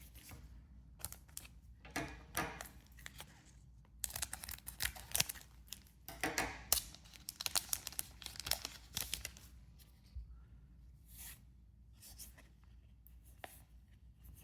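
A trading-card booster pack wrapper being torn open and crinkled by hand, in several ragged rustling stretches over the first nine seconds or so, then a few lighter rustles and clicks as the cards are handled.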